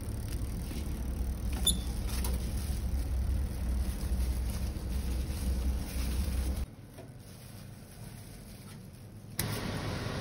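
Steady low rumble that drops away for a few seconds about two-thirds of the way in, then returns. There is a single light click about two seconds in.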